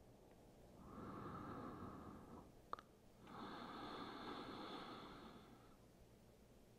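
A woman's slow, faint breathing: two long, deliberate breaths of about two seconds each, with a brief click between them.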